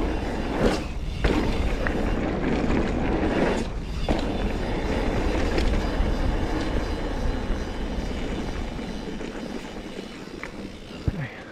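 Mountain bike rolling over a dirt trail: steady tyre rumble and wind noise with a few knocks and rattles, easing off near the end as the bike slows.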